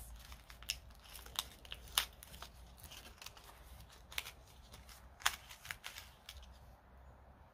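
A paper envelope being opened and its contents handled: a scatter of light crinkles and sharp clicks, the strongest about two seconds in and again about five seconds in.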